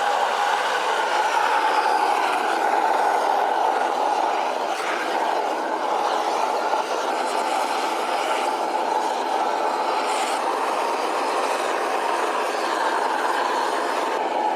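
Steady rushing noise of a heat source being run to heat the water and rice.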